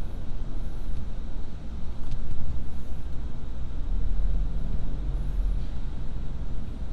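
Steady low rumble of a car driving in city traffic, heard from inside the cabin: engine and tyre noise.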